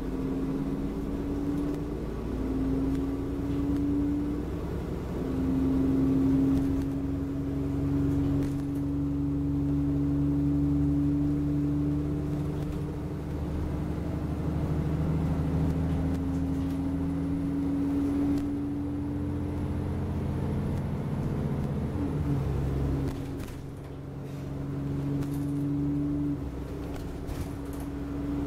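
Alexander Dennis Enviro400 double-decker bus on the Trident chassis, driving, heard from inside on the upper deck: a steady engine and drivetrain drone with a humming tone that climbs slowly and drops back in steps several times. The level dips briefly about three quarters of the way through, then the drone picks up again.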